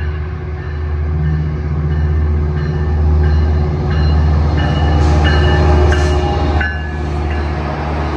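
Metrolink diesel locomotive passing close by as it pulls into a station, its engine running with a loud, steady low drone that peaks as the locomotive goes by about halfway through. A locomotive bell rings about twice a second above it.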